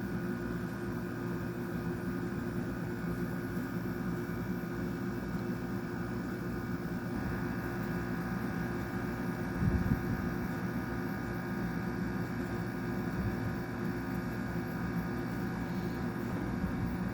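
2002 Whirlpool Gold 6500 BTU window air conditioner running, its Rechi rotary compressor and fan giving a steady hum with several steady tones. A brief low thump about ten seconds in.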